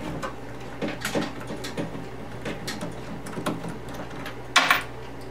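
Screwdriver backing out a chassis mounting screw inside a wooden console cabinet: small clicks and scrapes of the driver and screw, with one sharper knock about four and a half seconds in, over a steady low hum.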